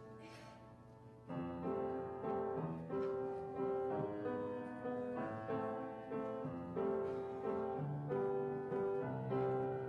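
Piano starts playing about a second in, striking notes and chords at an even pace, each fading before the next: a piano introduction or accompaniment for a choir piece, with no singing yet.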